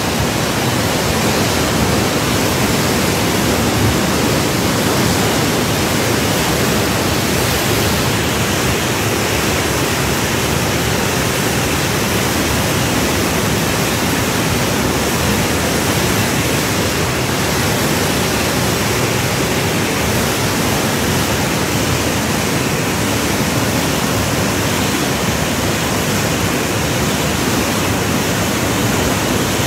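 The Parvati River in flood after cloudbursts, a fast muddy torrent making a loud, steady rush of water.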